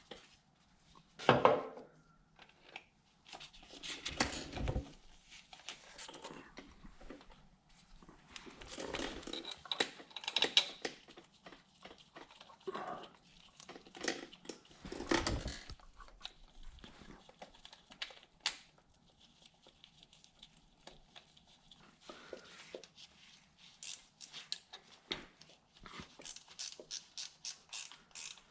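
Hand work on an engine: metal parts and hand tools clinking, knocking and scraping while a fuel pump is fitted, with a louder knock about a second and a half in and a quick run of even clicks near the end.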